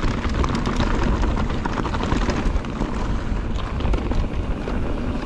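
Electric mountain bike riding fast down a rough dirt and stone trail: a steady rumble of tyres over loose gravel and rocks, with quick rattles and clatter from the bike, and wind buffeting the microphone.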